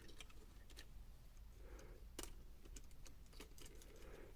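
Faint, scattered light clicks and taps of plastic as the radio unit's housing and small retaining tabs are handled and worked loose, with one sharper click about two seconds in.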